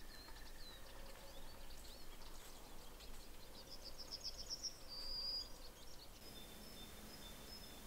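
Small forest birds calling, faint: scattered high chirps, a rapid trill of repeated notes about halfway through, then a short high whistle and a few thin high notes near the end.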